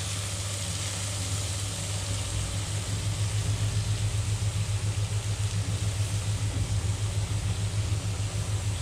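Chicken pieces sizzling in butter in a frying pan as more pieces are laid in. Under the sizzle runs a loud low hum that pulses rapidly and grows louder about three seconds in.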